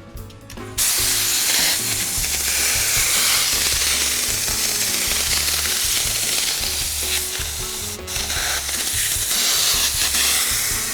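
Spray adhesive hissing steadily out of a spray nozzle onto seat foam, starting suddenly about a second in, with a brief break near the 8-second mark.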